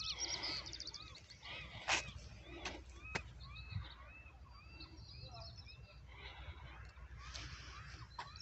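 Birds singing faintly: a quick series of short, evenly repeated arched notes in the first few seconds, with high thin trills. Two sharp clicks come about two and three seconds in.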